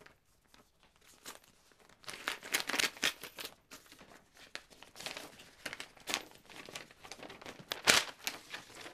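Paper envelope being handled and torn open: crinkling and tearing paper, starting about two seconds in as a rapid run of crackles and rips, with the loudest tear near the end.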